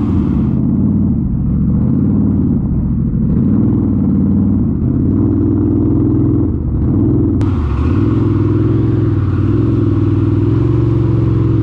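ATV engine running under changing throttle, its pitch rising and falling, easing off briefly a couple of times.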